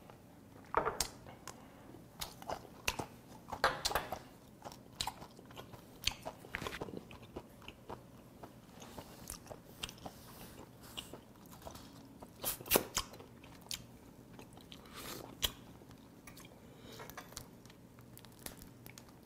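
Close-miked chewing of a mouthful of steamed cuttlefish and its roe: irregular wet mouth clicks and smacks, with a few louder ones about a second, four seconds and thirteen seconds in.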